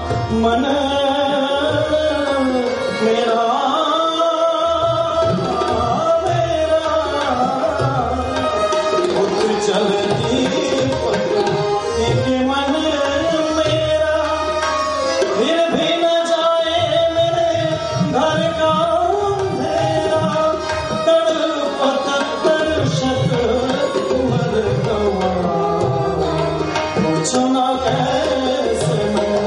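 Live ghazal performance: tabla drums keeping the rhythm under a harmonium, with a male voice singing a gliding, ornamented melody.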